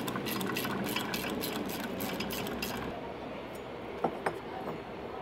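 Hand ratchet clicking in quick, uneven ticks as a bolt is worked loose, stopping about three seconds in; two sharp metal clinks follow about a second later.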